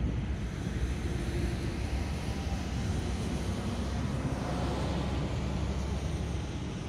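Jet airliner on approach, heard from a distance: a steady low engine rumble.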